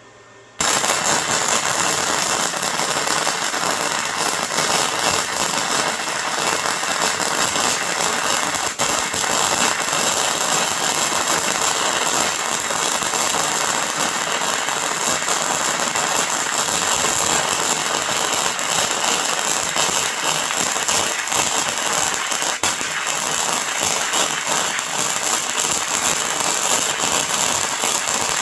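Harbor Freight Titanium 125 flux-core welder running a long bead with .035 wire: a steady crackling arc that strikes about half a second in and holds, dipping briefly twice, around 9 and 23 seconds in.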